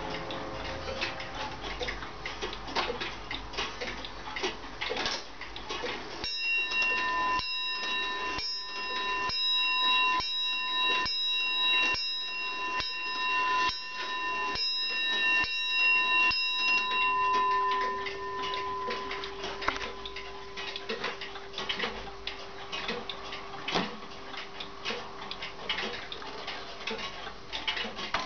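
Comtoise wall clock striking twelve on its bell: a slow, even run of about a dozen strokes, each ringing on until the next, while several clocks tick around it. As the striking ends, a lower tone sounds and hangs for several seconds.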